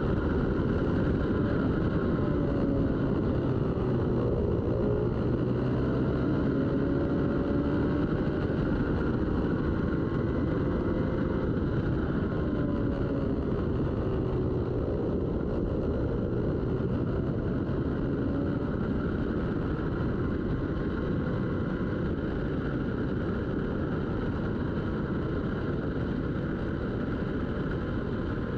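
Racing motorcycle engines running hard under a steady, dense rush of noise; the engine pitch drops and climbs back twice, about four seconds and fifteen seconds in.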